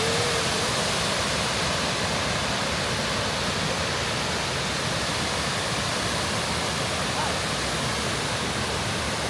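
A waterfall's falling water rushing in a steady, even wash of noise.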